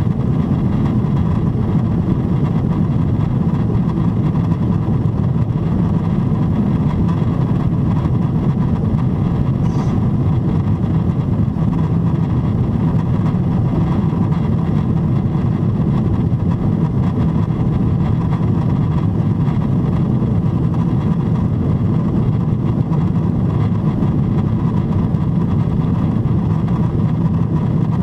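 Steady low roar inside the cabin of a Boeing 777-300ER in flight, climbing at about 28,500 ft: rushing airflow over the fuselage with the GE90-115B engines at climb thrust beneath it, and a faint steady tone in the noise.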